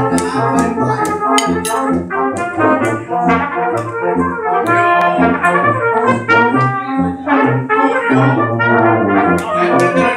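Small brass band (trumpet, euphonium and other horns) playing a lively little march, the trumpet leading the tune over a steady oom-pah bass line.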